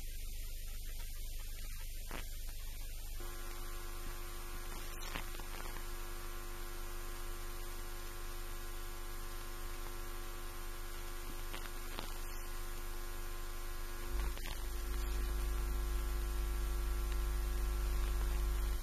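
Steady electrical mains hum. A set of steady buzzing tones starts suddenly about three seconds in, and a louder, deeper hum joins about fourteen seconds in.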